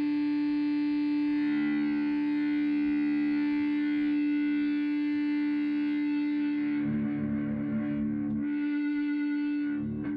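Distorted electric guitar music: a held chord rings out for about seven seconds, then a few new notes are played.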